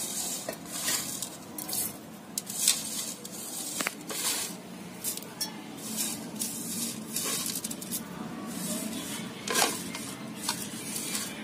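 Split coriander seeds being swept by hand across a plastic tray and dropped into a stainless steel bowl. The sound is an irregular dry rustling and scraping with a few sharp ticks.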